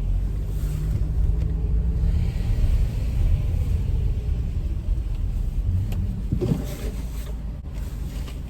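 Car engine running with a steady low rumble as the car creeps forward a short distance, heard from inside the cabin.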